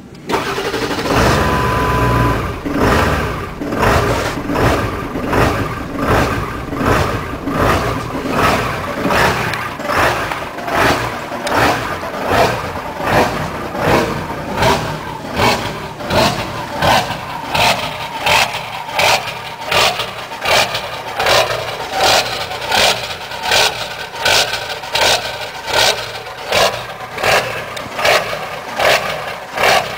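Ford 7.3L Powerstroke turbo-diesel V8 catching with the pedal floored, then running with a rhythmic surge, rising and falling a little more than once a second. The unstable idle comes from a failed injection control pressure (ICP) sensor, whose oil leak ruined its wiring harness. The computer ignores the sensor and snaps the IPR valve open and shut.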